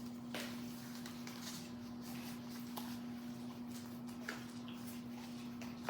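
Soft clicks and rustles of trading cards being handled and slid past one another, over a steady low hum.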